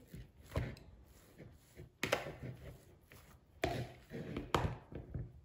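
A hand kneading crumbled cake with cocoa spread in a plastic bowl: faint rustling and squishing of the crumbs, with about five sharp knocks as the hand presses against the bowl.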